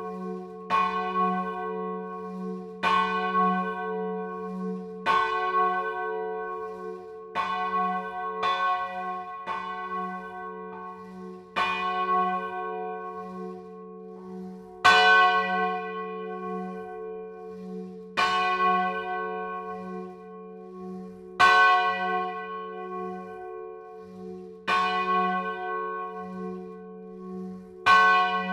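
A single church bell swinging and rung on its own, its clapper striking about every two to three seconds, each stroke ringing on over a steady low hum into the next. The strokes come further apart and louder in the second half. Heard close up from inside the belfry.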